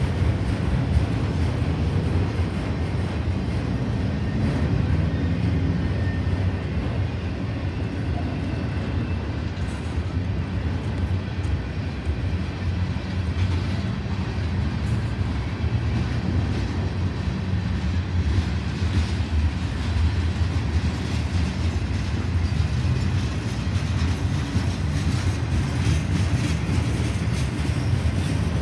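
Freight cars of a passing mixed train, autoracks and tank cars, rolling by at close range: a steady, continuous rumble of steel wheels on rail.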